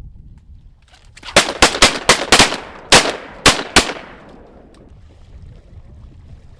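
A volley of about nine shotgun shots from several duck hunters firing at once. It starts about a second and a half in, comes in quick overlapping blasts and ends within about two and a half seconds. Wind rumble sits underneath.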